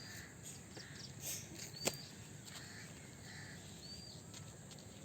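Faint outdoor background noise with a few short high chirps, roughly every two seconds, and a single light click about two seconds in.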